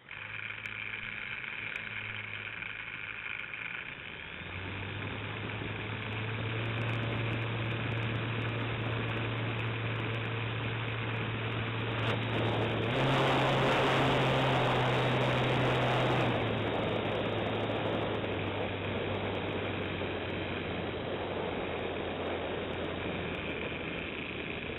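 Radio-controlled model airplane's motor running steadily at low power, stepping up about four seconds in. Midway it surges louder for about four seconds with a rush of air, then settles back to a steady cruising level.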